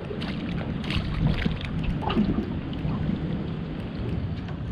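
A hooked bream splashing and thrashing at the water's surface beside the boat as it is drawn in, several short splashes over a low rumble of wind on the microphone.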